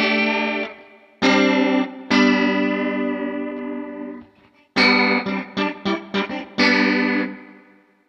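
Electric guitar, a Telecaster-style partscaster, played through a Fender Hammertone Chorus pedal set to four voices into an emulated Vox-style amp near breakup with noticeable spring reverb. Several strummed chords ring out, then a run of short choppy strums in the middle, and a last chord rings and fades near the end.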